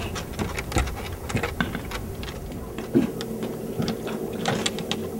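Irregular light clicking and ticking from a spinning reel being handled and cranked. A steady low hum comes in about three seconds in.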